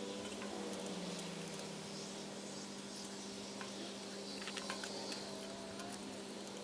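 Faint small clicks and light rubbing of hands fitting a rubber fuel hose onto a carburetor fitting, over a steady low hum.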